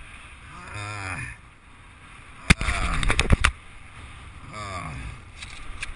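A person's voice calling out in several drawn-out, rising-and-falling calls over wind rumble on the microphone, with a few sharp clicks about two and a half seconds in, where the calls are loudest.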